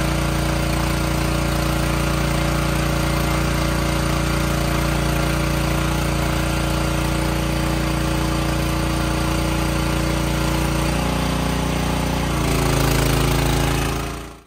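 Machinery running steadily with a constant hum. Its pitch shifts about eleven seconds in, it grows slightly louder a little later, and then it fades out.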